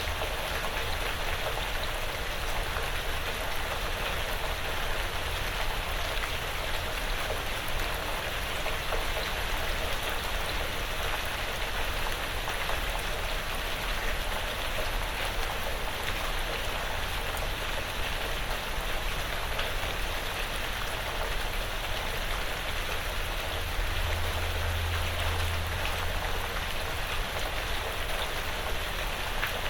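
Steady light rain falling on a porch roof and the surrounding woods: an even hiss with scattered individual drops.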